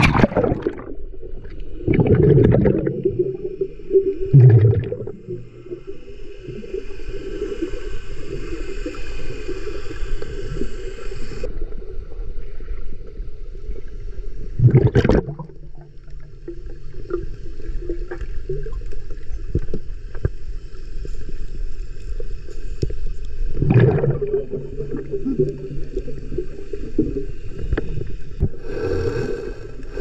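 Muffled underwater sound of the sea through a submerged camera: a splash at the very start as it goes under, then a steady low water rumble broken by several loud rushing swells, around two, four, fifteen and twenty-four seconds in and again near the end. A faint high whine comes in for a few seconds in the middle and cuts off suddenly.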